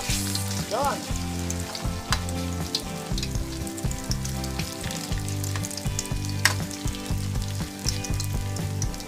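Grated-squash okoy fritters sizzling as they fry in hot oil in an aluminium wok, with a few sharp clicks of a metal spatula against the pan.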